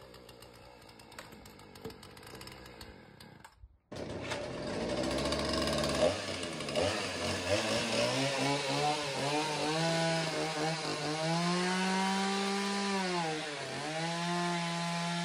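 A gas chainsaw starts running about four seconds in, after a quieter stretch, and cuts through blocks of styrofoam. Its engine note wavers, sagging and recovering as the chain is worked through the foam.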